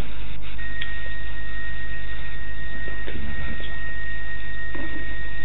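Radio receiver static: a constant hiss over a low hum, with a steady high whistle tone that comes in about half a second in and holds.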